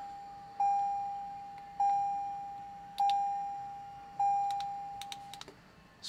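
Toyota 4Runner's dashboard warning chime, brought on by switching the ignition on: a single-pitched ding repeating about every 1.2 seconds, fading after each strike, then stopping. A few light clicks from the switch panel's buttons being pressed near the end.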